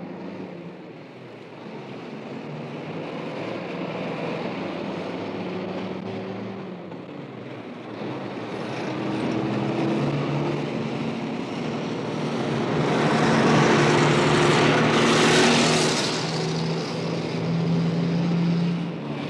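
Heavy road traffic: vehicle engines running and tyres hissing as vehicles pass, swelling to a loud pass-by about two thirds of the way through.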